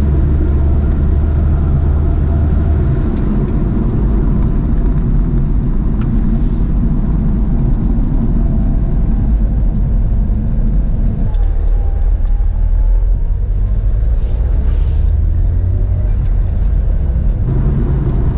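Supercharged 2007 Chevrolet Cobalt SS with its 2.0 L LSJ four-cylinder being driven, heard inside the cabin: a steady engine and road rumble. The rumble thins out about eleven seconds in and fills back in near the end.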